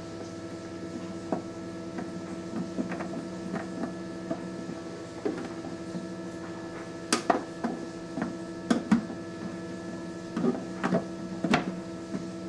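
Nurture Right 360 egg incubator running with a steady hum, under a dozen or so light plastic clicks and taps as its clear dome lid is handled and pressed into place, the clicks coming more often in the second half.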